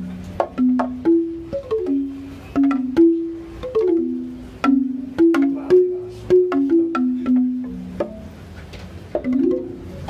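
Bamboo xylophone struck with mallets, playing a melody of short, quickly fading woody notes, mostly in quick descending runs of several notes a second.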